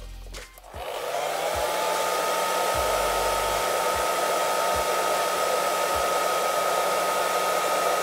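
Handheld hair dryer switched on about a second in, its motor spinning up with a short rising whine, then running steadily with a rush of air and a steady high whine, blowing into a cut-open plastic bottle.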